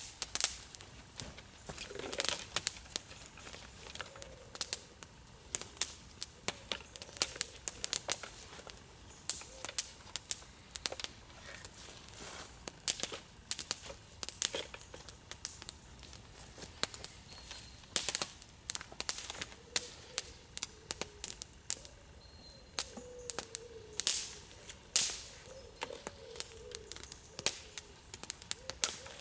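Small wood campfire crackling, with irregular sharp pops and snaps, a few of them loud.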